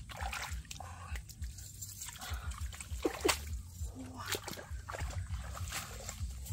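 Splashing and sloshing in shallow muddy water as a snakehead fish is grabbed by hand and hauled out, in irregular splashes with the sharpest about three seconds in.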